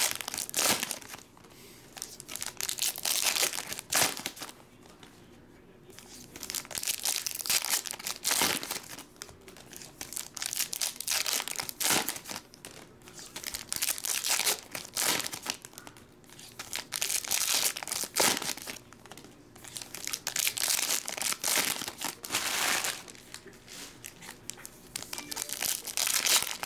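Foil trading-card pack wrappers crinkling and tearing as they are ripped open by hand. The sound comes in repeated bursts a few seconds long, with short quieter pauses between them.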